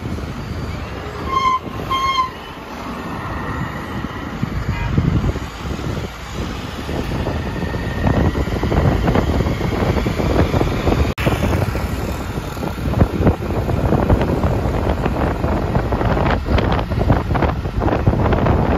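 Two short blasts of a vehicle horn about a second and a half in, over steady road traffic noise and wind buffeting the microphone.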